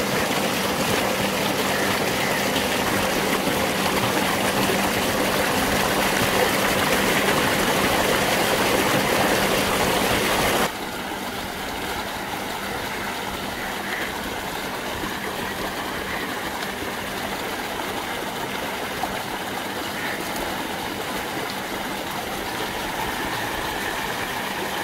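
Water gushing steadily from a well outlet into a concrete channel, with water sloshing in an aluminium basin as meat is washed and the washing water poured out, over a steady low hum. Louder for the first ten seconds or so, then steps down to a lower steady level.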